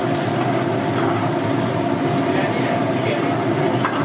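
A steel ladle stirring bean masala curry in an iron kadai over a gas burner, with one clink of the ladle against the pan near the end, over a loud steady drone.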